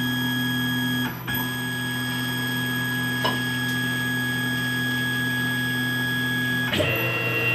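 Electric motor of a machine tool running steadily, a low hum with a thin high whine. It dips briefly about a second in, and the tones shift near the end.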